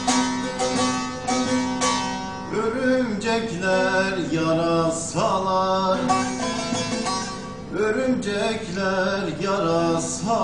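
Bağlama (Turkish long-necked saz) played with a plectrum in a folk-song interlude: quick repeated plucked notes over a held low drone, then a melody with bent, ornamented notes from about two and a half seconds in.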